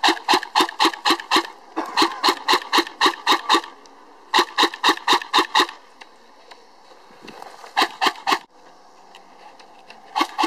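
An airsoft electric rifle firing on full auto in three bursts of roughly seven shots a second, each lasting a second and a half to two seconds. It is followed by a short burst of three or four shots and, near the end, two more.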